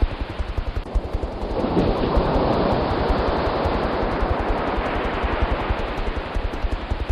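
Helicopter rotor thudding in a fast, even beat under a loud rushing, wind-like noise that swells about two seconds in.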